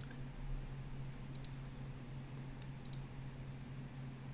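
Faint double clicks at a computer, two pairs about a second and a half apart, over a steady low electrical hum.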